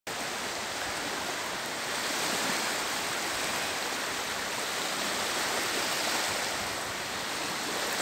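Small Baltic Sea waves breaking and washing onto a sandy shore: a steady hiss of surf.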